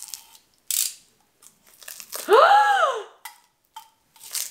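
Paper wrapping being picked at and torn off a drinks can, in short crinkling rustles near the start and again near the end. About two and a half seconds in comes a woman's drawn-out vocal exclamation, rising then falling in pitch, the loudest sound.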